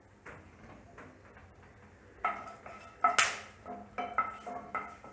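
Spatula stirring black peppercorns frying in hot ghee in a nonstick pan, knocking and scraping against the pan in a quick run of short ringing taps that starts about two seconds in. One sharp crack stands out about three seconds in.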